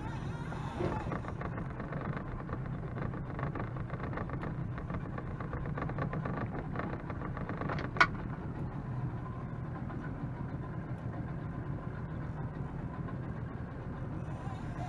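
Outboard motor idling with a steady low hum while a fishing reel is wound, its winding giving a rapid fine ticking over the first few seconds; a single sharp click about eight seconds in.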